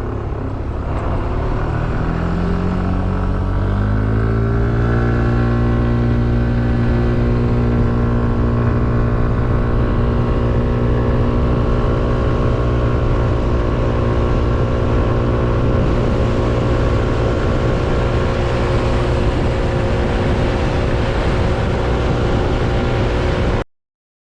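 Yamaha Smax 155 scooter's single-cylinder four-stroke engine accelerating, its pitch rising over the first few seconds, then holding one steady pitch at highway speed over a rush of wind. The sound cuts off suddenly near the end.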